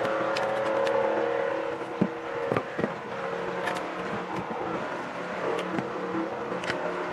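A steady mechanical hum with several pitches, over which pliers click and crack a few times as they grip and pull nails and splinters out of old chair wood.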